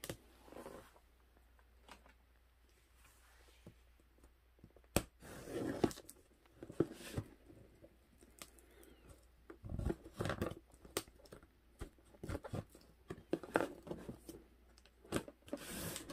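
Packing tape being picked at, cut and torn off a cardboard box: irregular scratching, ripping and crinkling noises with a few sharp clicks.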